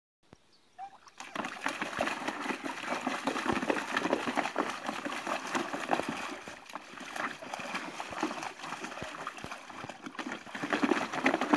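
Water splashing and sloshing in a small plastic paddling pool as a young border collie paws and stamps in it, starting about a second in with irregular splashes that grow louder near the end.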